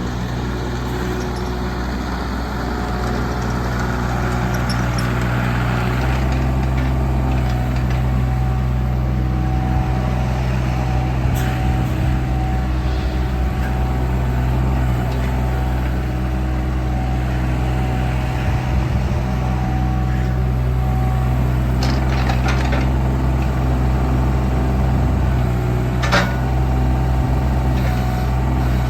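JCB 18Z-1 mini excavator's diesel engine running steadily, rising in speed a few seconds in. A thin steady whine sits over it through the middle, and a few sharp knocks come later on, near the end.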